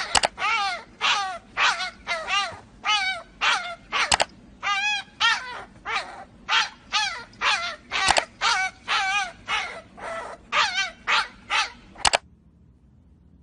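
An animal calling over and over in short, loud, pitched cries, about two a second, which stop abruptly near the end.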